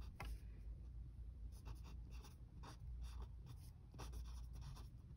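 Faint scratching of a writing tip on sketchbook paper as a word is hand-lettered: a run of short, irregular pen strokes.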